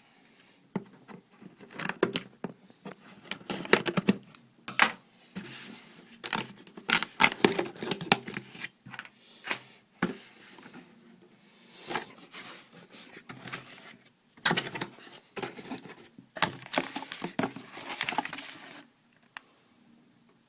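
Packaging being opened and handled: irregular crinkling, rustling and tearing of paper, cardboard and plastic, broken by sharp clicks and knocks, stopping shortly before the end.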